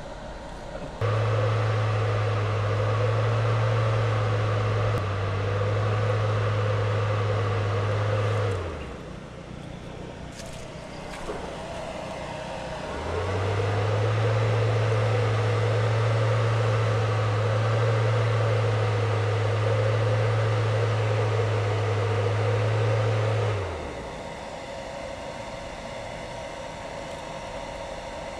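A motor humming at a steady pitch, running twice: from about a second in until about nine seconds, then again from about thirteen until about twenty-four seconds, its pitch sagging as it winds down each time.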